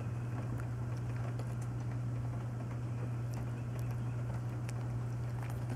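Lipstick being rubbed onto the lips, heard as a few faint scattered clicks and soft rubbing over a steady low hum.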